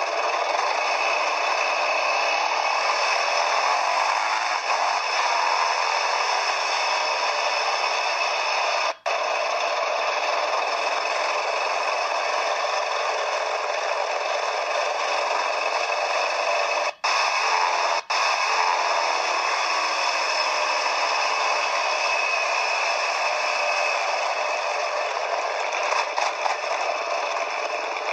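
Steady, rough rattling ride noise of a quad bike as picked up by an onboard camera: engine, wind and rattle blended into one harsh hiss. It is broken by three brief dropouts, about a third of the way in and twice close together near two thirds.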